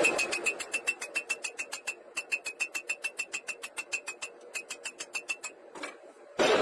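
Quick, even hammer blows on red-hot steel on an anvil, about six a second, each with a high ringing note from the anvil; they pause briefly once and stop shortly before the end, where a loud, dense mechanical clatter starts.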